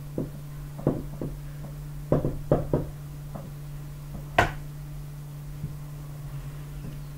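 Marker pen tapping and scraping on a whiteboard while writing: a string of irregular short taps, the sharpest about four and a half seconds in, over a steady low hum.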